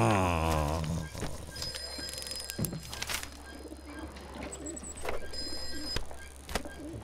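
A man's drawn-out hum sliding down in pitch, fading out about a second in, followed by faint small clicks and rustles.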